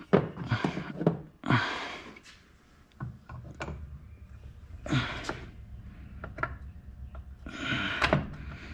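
Irregular clicks, light knocks and short rushes of noise as engine parts are handled and worked into place by hand during a two-stroke engine rebuild.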